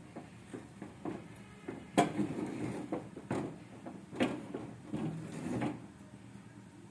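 A spoon stirring and pressing stiff maize-flour ugali in a pot, with irregular knocks and scrapes against the pot; the loudest knock comes about two seconds in.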